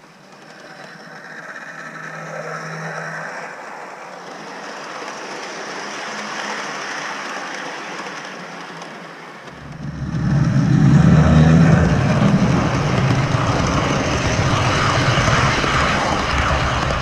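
A model freight train's wheels rolling on the track: a clatter that grows as the train approaches, then a loud, close rumble with rapid clicking from about ten seconds in as the boxcars roll right past.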